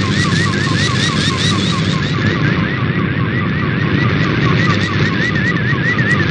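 Shortwave digital picture transmission in MFSK image mode: a warbling tone that sweeps up and down about three times a second, over a thick bed of static and local interference noise.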